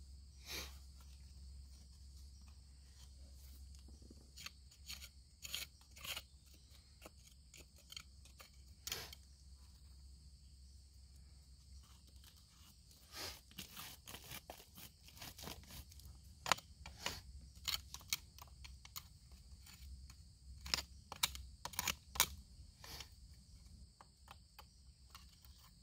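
A thin metal probe scraping and clicking against rock and loose gravel while a dirt-and-rock face is picked apart by hand, in irregular scattered clicks that come thicker in the second half.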